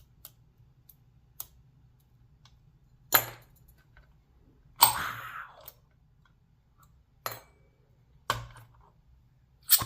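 Large brass padlock being handled: a few faint ticks, then five sharp metal clacks and knocks, one followed by a short rattle.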